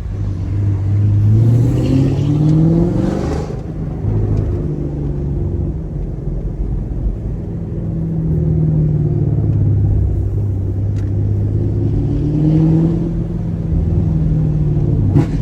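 Chevrolet Camaro SS 1LE's naturally aspirated V8 pulling through a gear, its pitch rising for about three seconds before dropping at the shift of the manual gearbox, then cruising at steady revs, with a second, shorter pull-up past the middle.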